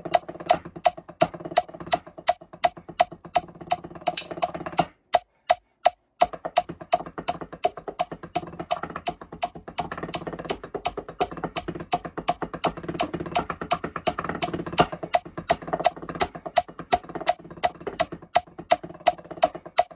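Marching tenor (quad) practice pads struck with mallets in fast rolls and patterns of dull taps, over a steady metronome click. The playing stops for about a second around five seconds in, leaving only the clicks, then starts again.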